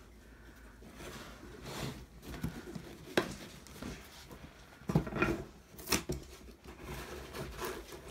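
Cardboard shipping box being handled and slid about on a tabletop: scattered light scrapes, rustles and knocks, the loudest ones about five and six seconds in.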